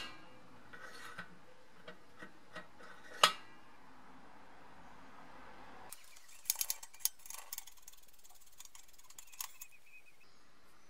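Light clicks and knocks of the brass parts of a Tilley storm lamp being handled and taken off, with one sharp click a little after three seconds and a quick run of clicks in the middle.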